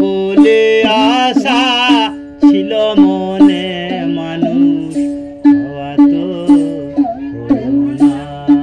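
Background music: a Bengali folk song, a voice singing over a plucked string instrument with a steady beat.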